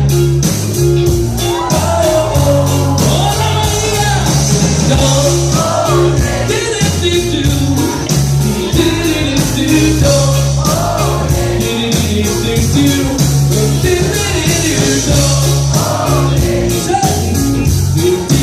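Live rock band performing with a lead singer over drums, bass and guitar, with a steady beat.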